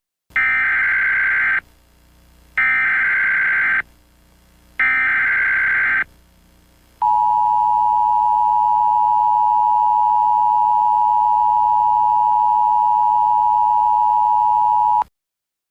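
Emergency Alert System alert tones. First come three short bursts of the SAME header data squawk, each a little over a second long with a pause between them. Then comes the steady two-tone attention signal, held for about eight seconds before cutting off suddenly.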